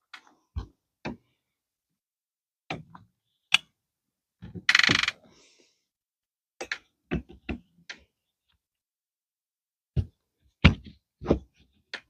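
Scattered knocks and clicks of a keyless-entry door lock being worked into the lock hole of a trailer door, with a short scraping rasp about five seconds in.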